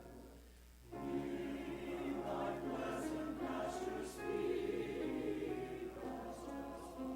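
Church choir singing with held notes; the voices drop out briefly, and a new phrase enters about a second in.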